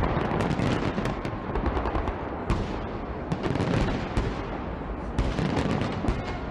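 Fireworks bursting in quick succession: a dense run of sharp bangs and crackling over a continuous low rumble.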